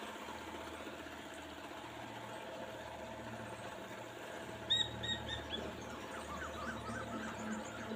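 Steady motor hum from an electric cooktop, with a wooden spoon stirring chopped bottle gourd in a non-stick wok. About halfway through, a bird gives four short high chirps, the loudest sound here. Small scratchy ticks from the stirring follow near the end.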